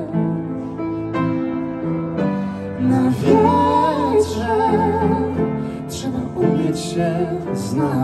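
Live band music: piano and keyboard chords, joined about three seconds in by a woman's voice singing a held, wavering line without clear words.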